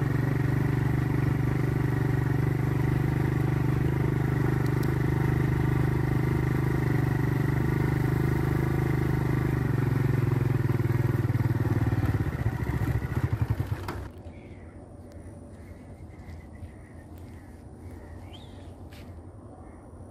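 Small commuter motorcycle's engine running steadily while ridden. About 12 seconds in it slows into separate beats, and it cuts off abruptly about two seconds later, leaving quiet outdoor background.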